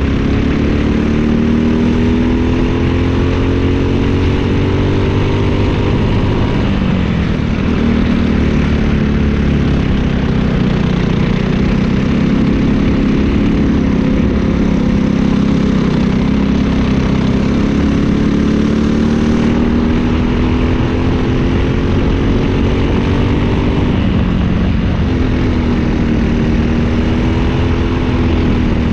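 Briggs & Stratton LO206 single-cylinder four-stroke kart engine at racing speed, heard onboard. Its pitch climbs as the kart accelerates and falls off when the driver lifts for the corners, most clearly about seven seconds in and again about twenty-five seconds in.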